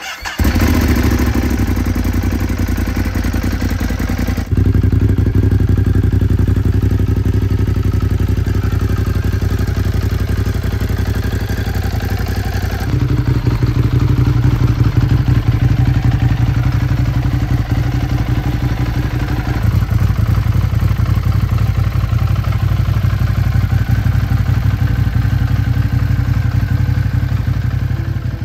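Ducati Monster 821's L-twin engine running steadily. It comes in suddenly right at the start, and its level shifts in a few abrupt steps, with no revving.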